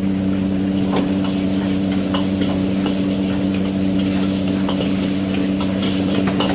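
Vegetables sizzling in a hot wok as a steel ladle stirs and scrapes them, with short clicks of the ladle against the pan, over a steady low hum.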